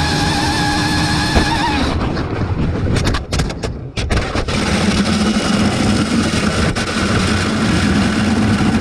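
Onboard sound of an electric RC speed-run car at about 180 mph: a high motor whine with a wavering pitch, a sharp click, then about two seconds in the whine gives way to rough rushing and rattling noise with several sharp knocks and dropouts as the car strikes a rock on the runway. It then settles into a steadier, lower rushing hum as it slows.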